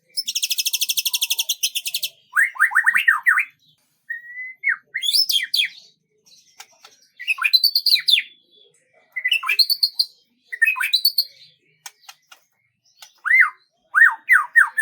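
Bird song: a fast buzzy trill for about the first two seconds, then a series of short phrases of quick, sweeping chirps with brief pauses between them.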